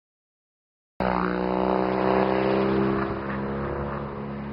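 BMW motorcycle engine running as the bike leans through a bend and rides away, its note dropping slightly in pitch and fading. The sound cuts in suddenly about a second in.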